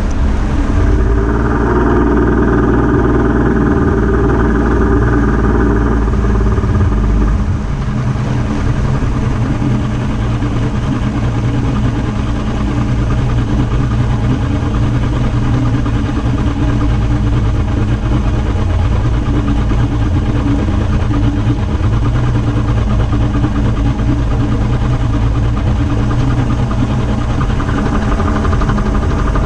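Bass boat outboard motor running, heard close up: at speed for the first several seconds, then throttled back about seven seconds in to a steady lower run off plane, picking up a little again near the end.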